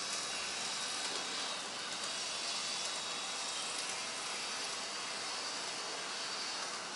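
Small electric motor and wheels of an HO-scale Hobbytrain Klv 12 model railcar running round its track: a steady high hiss with a faint whine.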